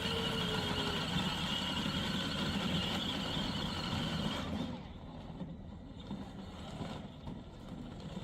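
24V kids' electric ride-on car driving through snow, its electric drive motors whining steadily, then dropping away about halfway through.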